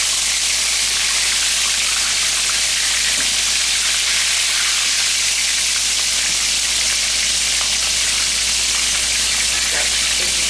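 Flour-and-cornmeal-coated chicken pieces frying in shallow hot oil, giving a loud, steady sizzle and crackle.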